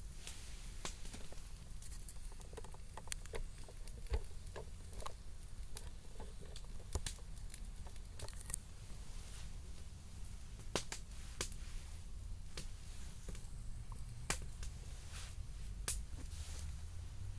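Wood campfire crackling, with irregular sharp pops and snaps over a low steady rumble of the flames.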